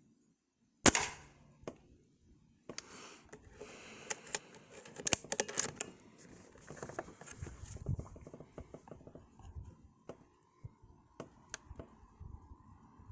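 A single shot from a moderated Diana Storm Rider .22 PCP air rifle about a second in, followed by several seconds of handling noise with clicks and a few later clicks.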